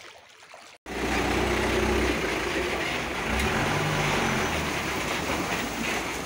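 A motor scooter ridden through floodwater: its small engine running under a loud, steady rush of churned and splashing water. The sound starts abruptly about a second in.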